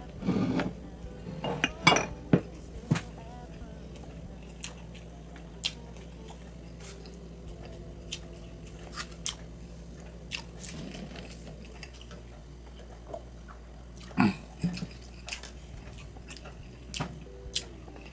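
Cutlery clinking and tapping against a plate during a meal, in scattered single clicks. Louder clusters of clinks come near the start and again about fourteen seconds in.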